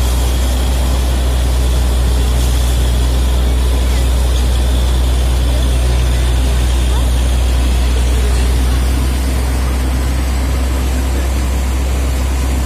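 Borewell drilling rig running: a steady low engine drone under the loud rushing hiss of compressed air blasting water and spray up out of the borehole. The drone eases slightly about nine seconds in.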